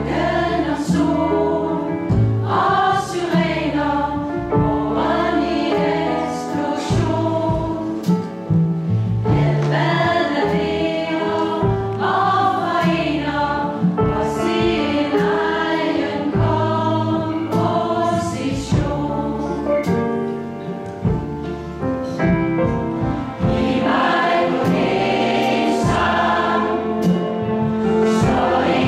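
Large mixed choir of about eighty voices singing a song together, with instrumental band accompaniment underneath.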